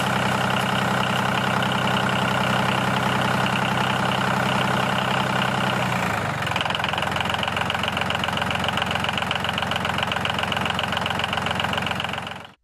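A small motor running steadily with a fast knocking pulse, as the miniature DIY tractor drives with its trailer. The pitch and tone shift about six seconds in, and the sound fades out just before the end.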